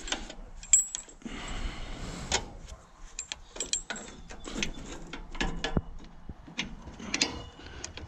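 Irregular light metallic clicks, clinks and rattles of steel being handled: a steel bar and the drive chains and fittings on the pickup side of a Welger round baler.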